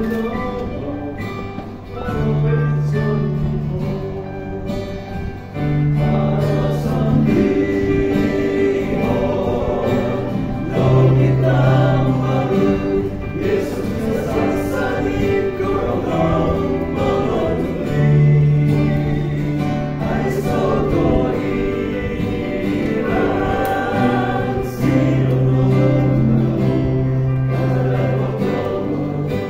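A male vocal quartet singing a Christian gospel hymn together, with long held low notes under the melody.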